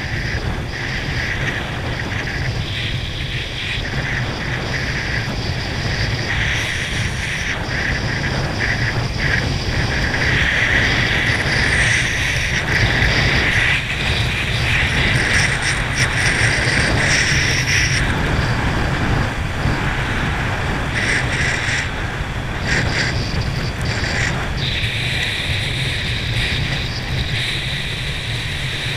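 Water rushing and spraying under a water ski towed at speed behind a boat, with wind buffeting the microphone. A steady, loud rush with a low rumble and a hiss that swells and eases as the ski cuts across the wake.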